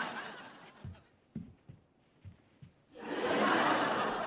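Studio audience laughter dies away, a few soft thumps follow in the lull, and the audience laughter swells up again about three seconds in.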